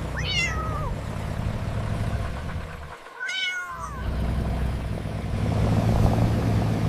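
A low, steady engine-like hum that drops out briefly about three seconds in, with two short cries over it that fall and waver in pitch: one at the start and one about three seconds in.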